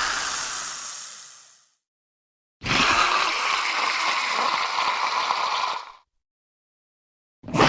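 Designed Dilophosaurus creature calls: a hiss-like call fading out, a pause, then a second call of about three seconds that cuts off sharply, and a third call beginning near the end.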